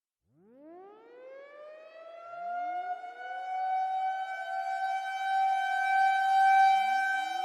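Civil defense siren winding up from silence, its tone rising steeply and then holding a steady high wail as it gets louder. A second siren starts winding up about two seconds in, and a third near the end.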